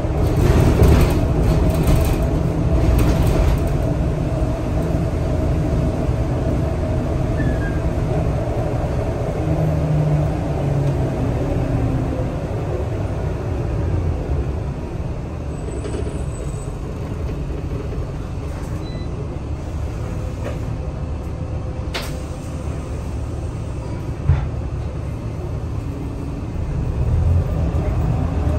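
Inside a Scania L94UB city bus: steady engine and road rumble with interior rattles. A single sharp knock comes a few seconds before the end, and near the end the engine note rises as the bus picks up speed.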